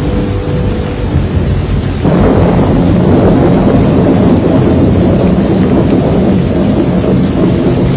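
Storm sound of rumbling thunder and heavy rain, a dense low roar that jumps louder about two seconds in and then holds steady.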